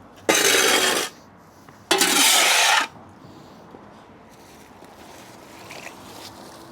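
Pressure washer lance spraying in two short bursts of about a second each, starting and stopping sharply as the trigger is squeezed and released.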